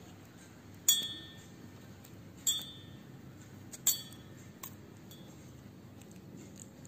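Small stainless steel bowl clinking three times, about a second and a half apart, each with a brief ring, as bits of boiled-egg shell go into it, then a fainter tick.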